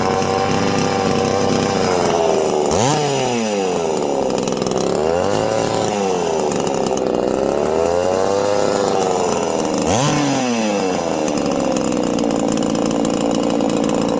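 Poulan 3400 two-stroke chainsaw engine running, its speed surging up and sagging back again and again, with sharp jumps about three seconds in and ten seconds in. The owner first took the hunting for an air leak, then put it down to the saw running low on fuel and drawing air when tipped over.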